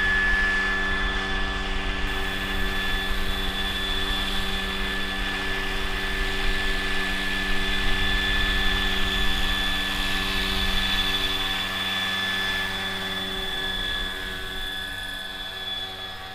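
Giant-scale radio-controlled Bell AH-1Z Viper (Cobra) model helicopter flying low: its steady rotor sound carries a high whine. It grows fainter over the last few seconds as the helicopter moves away.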